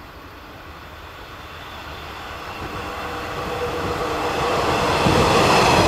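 JR 185 series electric train approaching and running past, its rail and running noise growing steadily louder as it nears, with a whine through it and a jump in loudness about five seconds in as it draws level.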